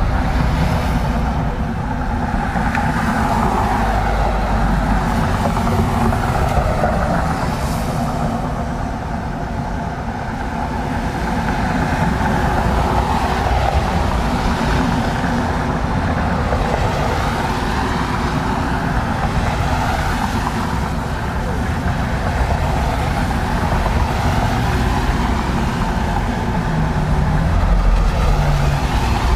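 Road traffic on a wet arterial road: a steady rumble of passing cars with tyre noise on wet pavement, easing off twice and swelling again as a car comes past near the end.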